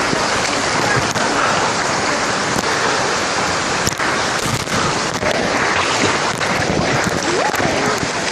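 River water sloshing and splashing against a phone in a waterproof pouch held at the water surface, with many short knocks and rubs of water and hands on the pouch.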